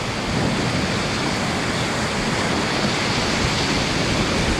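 Steady, loud rush of white water from a river rapid in high water, close around a kayak running it.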